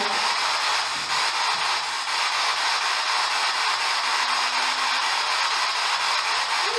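Steady hiss of radio static from a spirit box, the scanning radio used for EVP sessions. A brief faint low tone comes through about four seconds in.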